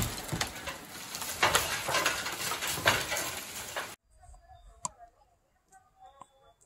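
Loud rushing, crackling noise of wind buffeting the microphone for about four seconds, cutting off abruptly. Then faint bird calls and one sharp click.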